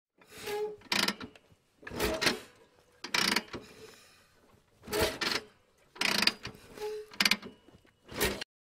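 About ten short mechanical clatters, irregularly spaced with quiet gaps between them: a clanking, ratcheting intro sound effect.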